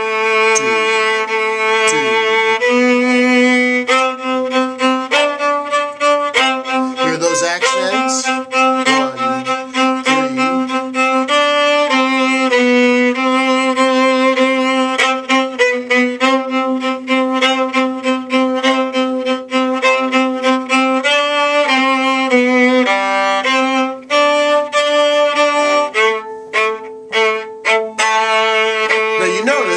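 Viola playing a bowed melodic passage at a steady pace, the notes changing every half second or so, with a lower note sounding alongside the melody much of the time.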